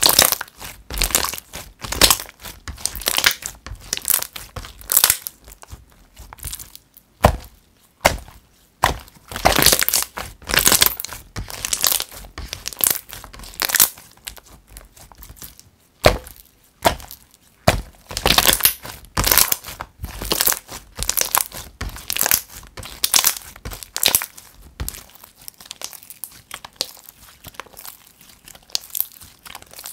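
Glossy clear-glue slime being squeezed, pressed and stretched by hand, giving dense, irregular sticky crackles, pops and squelches.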